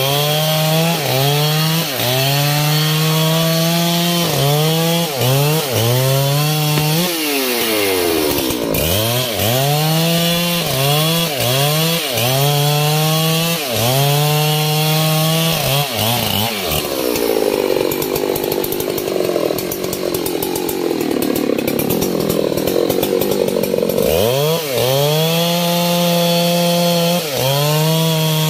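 Husqvarna 3120 XP two-stroke chainsaw cutting into a thick hardwood trunk, its engine revving up and dipping about once a second as the chain bites. For several seconds past the middle it is pulled down to a lower, rougher pitch under heavy load, then picks up and resumes the rise and fall near the end.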